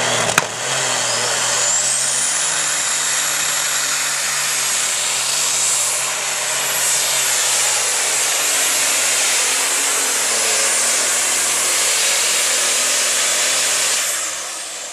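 Case IH Open Super Stock pulling tractor's multi-turbocharged diesel engine running at full throttle while it pulls the sled. A sharp crack comes just after the start. A high turbo whine then rises over about two seconds and holds. Near the end the engine is shut down and the sound falls away.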